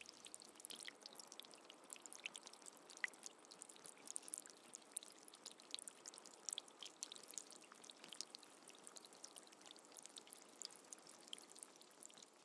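Rain falling: a faint, even hiss dotted with many small pattering drops.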